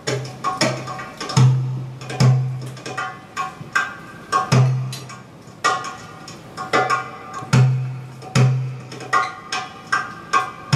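Live belly-dance music from a small ensemble: a hand drum plays an irregular rhythm of deep ringing low strokes and sharp high slaps, over double bass and sustained melodic notes.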